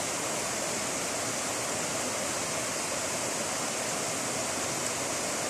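River water pouring over a low weir and rushing through shallow rapids: a steady, even rush of water.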